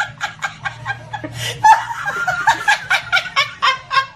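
A person laughing in quick, pitched chuckling bursts, about four or five a second.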